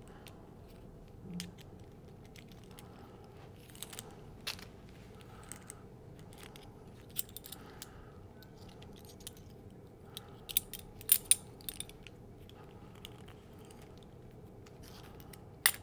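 Light handling noise of a Michell TecnoArm 2 tonearm and its cables: scattered small clicks and clatter as the phono cables are threaded through the VTA adjuster collar. A quick run of sharper clicks comes a little past two-thirds of the way, and one more near the end.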